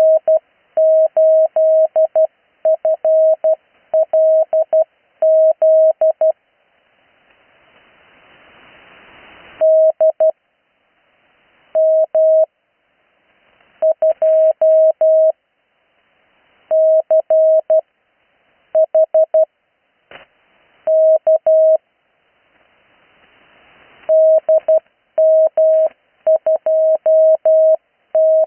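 Morse code (CW) on an 80-metre amateur radio signal: one steady mid-pitched tone keyed in dots and dashes, spelling out practice call signs in groups separated by pauses. Radio hiss swells up in the longer gaps between groups.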